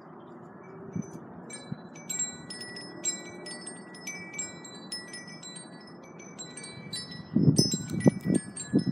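Wind chimes ringing in a breeze: clear, high, overlapping tones struck at irregular moments. A few louder low rumbling bumps come near the end.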